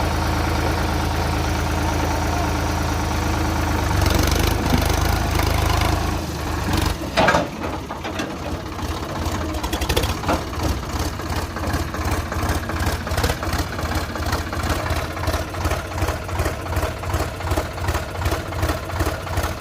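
Diesel engine of a tractor or backhoe loader running steadily, with a sharp knock about seven seconds in. After that the engine settles into a slower idle with a regular beat of about two to three pulses a second.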